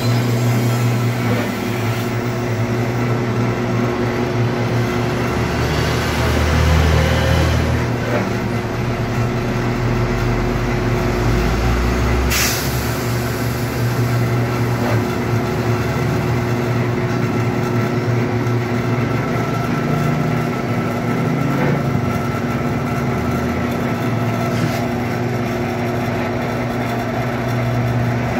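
Pan-type mortar mixer running empty, its motor and gearbox giving a steady mechanical hum. There is a brief sharp clack about twelve seconds in.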